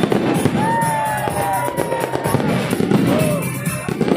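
Aerial fireworks display: shells bursting and crackling in rapid succession.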